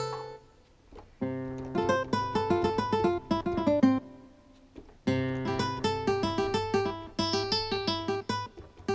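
Yamaha MX49 keyboard playing an acoustic-guitar voice: two phrases of quickly picked notes with a short pause about four seconds in.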